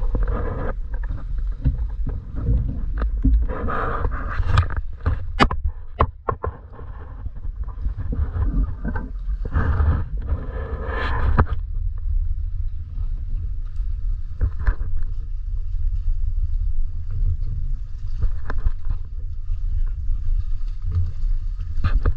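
Muffled water sloshing and splashing from a snorkeler moving at the surface, over a steady low rumble. There are louder splashy stretches near the start, around four seconds in and around ten seconds in, and a few sharp knocks.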